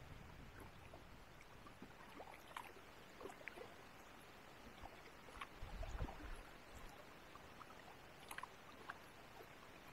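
Faint small water sounds around a kayak: scattered irregular drips and light splashes, with a soft low knock about six seconds in.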